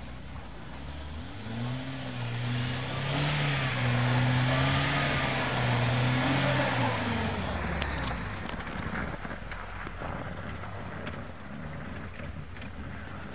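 UAZ Patriot SUV engine revving under load on a snowy climb, its pitch rising and falling, with tyres churning through snow. It is loudest in the middle and drops away after about eight seconds as the vehicle backs off.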